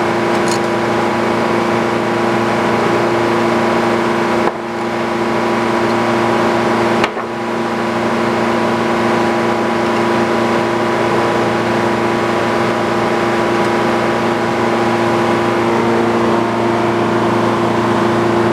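Sawmill engine running steadily at a constant speed, with two brief, sudden dips in level partway through.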